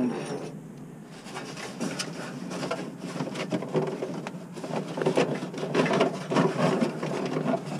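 Rustling and scraping of a sleeve and hand rummaging up behind a truck's dashboard, with many small irregular clicks and knocks from the wiring and metal brackets.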